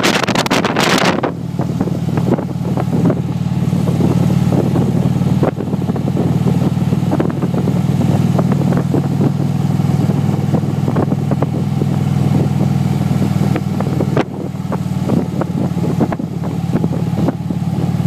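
Harley-Davidson Ultra Classic touring motorcycle's V-twin engine running steadily under way, heard from the saddle. Heavy wind buffeting on the microphone for about the first second, then wind noise more lightly over the engine.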